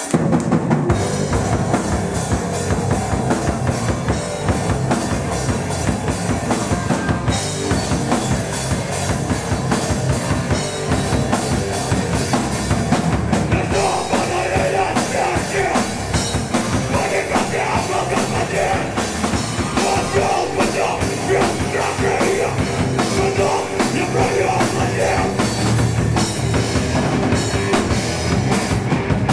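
Hardcore band playing live: a fast, pounding drum kit with electric guitar and bass guitar, and a vocalist shouting into the microphone from about halfway in.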